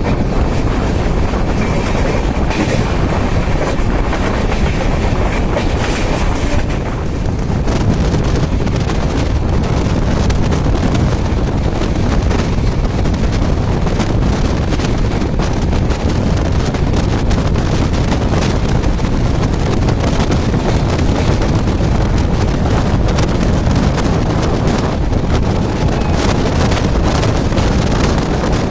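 Antyodaya Express passenger train running at speed, heard from aboard: a steady rumble and rush of wind with dense clicking of the wheels over the rails. A faint high steady tone sounds for a few seconds near the start.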